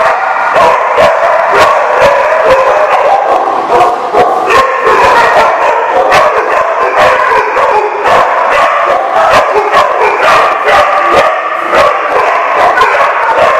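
Many dogs barking and yipping at once, a loud continuous din of overlapping barks without a pause.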